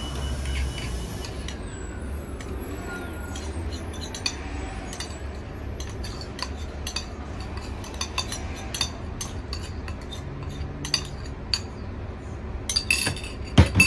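Metal spoon scraping and tapping against the inside of a ceramic bowl to empty out a thick marinade: a run of light clinks and scrapes, with a few louder knocks close to the end.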